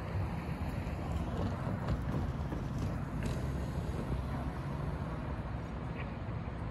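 Steady low rumble of wind on the microphone and street traffic, with a few faint scattered clicks.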